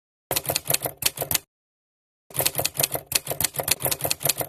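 Rapid typing-like key clicks, about five or six a second. A short run comes first, then a longer one starts about two seconds in, with dead silence between the two.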